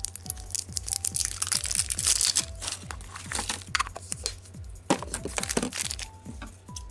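Toy packaging crackling and crunching as it is torn open, in two spells of a few seconds each, over steady background music.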